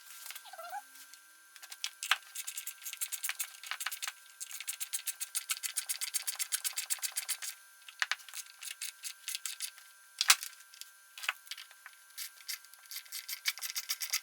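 Rapid rhythmic scraping or rubbing strokes from hand work, about six a second in runs, broken by a few sharp clicks.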